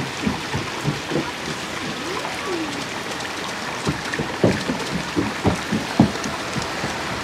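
Running water splashing and trickling steadily, with irregular small plops and gurgles, as from water falling into a garden pond.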